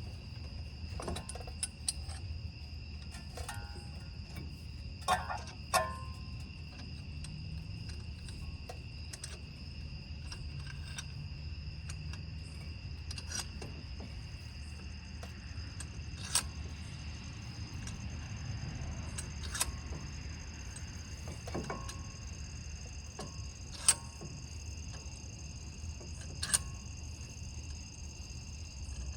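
Scattered sharp metallic clicks and knocks of a brake caliper and hand tools being handled while the caliper piston is pressed back against the old pad, over a steady high-pitched whine.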